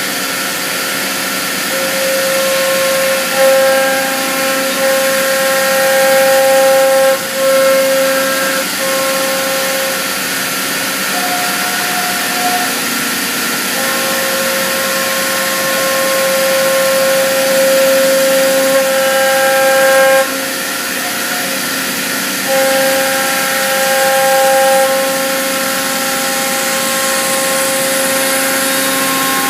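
C.R. Onsrud Panel Pro CNC router running, with a steady high whine over a constant hiss. The whine drops out and returns every few seconds.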